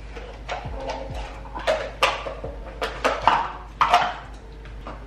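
Kitchen clatter: several sharp knocks and clinks of cans, jars and cartons being handled on a countertop, bunched between about one and a half and four seconds in.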